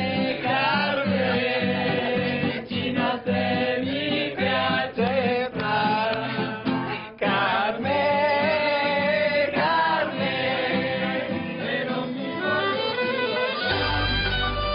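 Music: a song with singing over instruments. A deep bass line comes in near the end.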